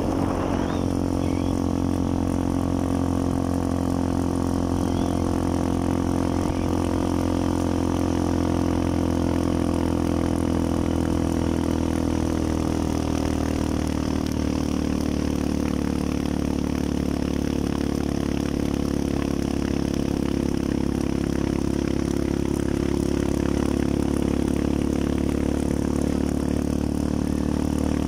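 Small motorcycle engine running steadily at an even speed, heard from the pillion seat of the moving bike.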